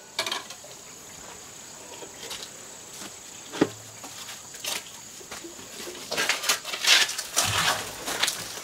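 Knocks, scrapes and clatter at the firebox of a wood-fired bath as old ash and half-burnt wood are raked out: a single sharp knock about three and a half seconds in, then a run of scraping and clattering near the end as a plastic bucket is brought in. A faint steady high tone runs underneath.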